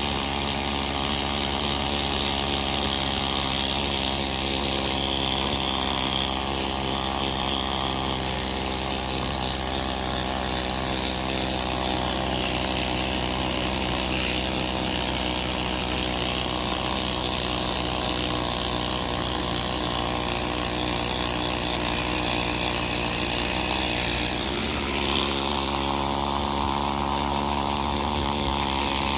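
Pneumatic needle scaler hammering its steel needles against the rusty cast-iron housing of a GM 14-bolt differential, a continuous loud rattling buzz as it knocks loose rust scale off. The sound dips briefly about three-quarters of the way through, then carries on.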